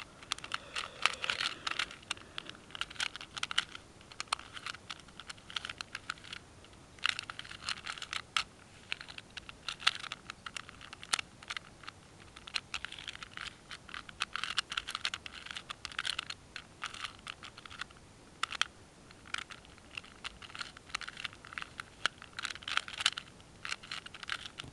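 A 2x2x2 puzzle cube being turned quickly by hand: rapid clicking of its plastic layers, in bursts of turns with short pauses between them.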